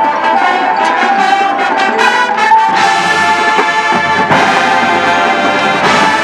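Marching band brass (trumpets and trombones) playing full, held chords, with new loud attacks about three seconds in, again a second and a half later, and near the end.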